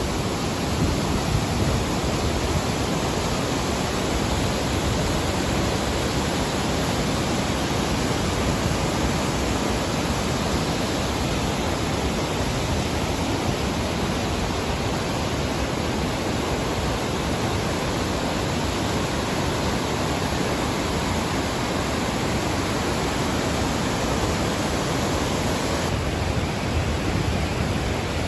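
River water pouring through a dam's floodgates and churning as whitewater over the rocks below: a steady rush with no break.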